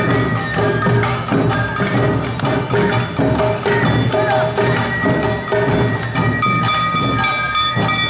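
Awa odori festival band (narimono) playing live: an even, driving beat of drums and clanging kane hand gongs, with held melodic tones over it.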